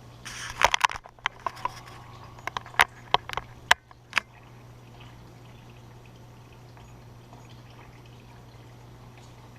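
A quick series of sharp clicks and knocks over the first four seconds, over a low steady hum.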